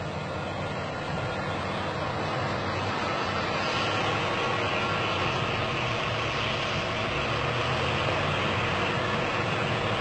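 Heavy crawler bulldozer's diesel engine running steadily under load, a continuous drone that grows gradually louder as the machines come closer.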